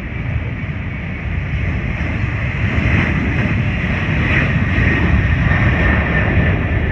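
Boeing 737 jet engines at takeoff thrust as the airliner rolls past and lifts off: a deep, steady roar that grows louder, with a high fan whine coming in about halfway through.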